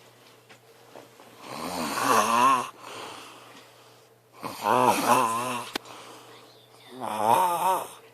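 A man snoring: three snores about two and a half to three seconds apart, each a pitched, fluttering drone lasting about a second.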